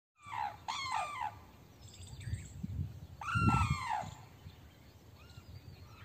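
Sarus cranes calling with loud trumpeting notes that fall in pitch: a quick run of three near the start, then one louder, longer note about three seconds in.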